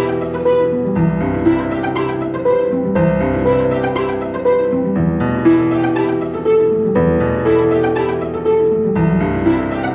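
Gentle instrumental piano music, with note changes about every second and a chord change every couple of seconds, at a steady level.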